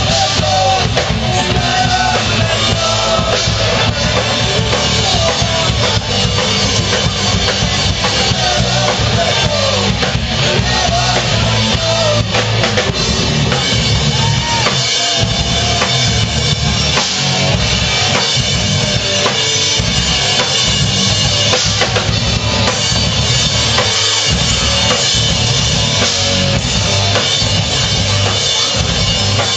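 Live rock band playing loud and without a break: electric guitars over a drum kit.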